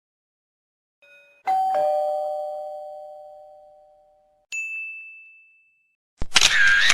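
Doorbell chime: a two-note ding-dong, high note then low, ringing out and fading over about three seconds. A single short high ding follows, then near the end a brief, loud, noisy burst with a wavering tone.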